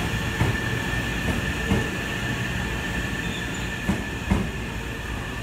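Hankyu electric train rolling slowly past with a steady low rumble and a steady high squeal from its wheels, and a few sharp clunks as wheels cross rail joints and points.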